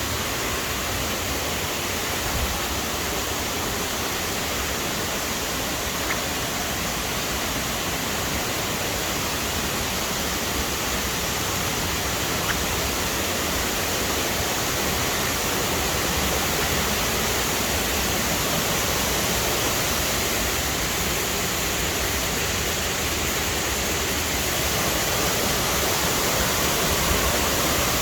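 Rushing water making a steady, even noise, a little louder near the end.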